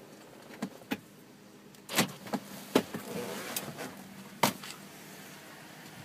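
A series of sharp clicks and knocks, about seven, the loudest around two, three and four and a half seconds in, with some rustling between them over a faint steady hum: handling noise from a handheld camera moving through a car's interior.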